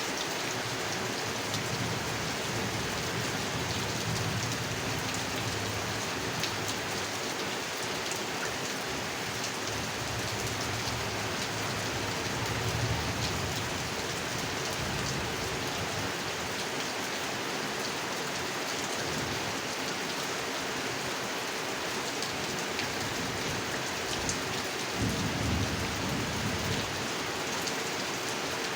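Heavy rain falling steadily on a pond, with low rumbles of thunder a few times, the clearest one near the end.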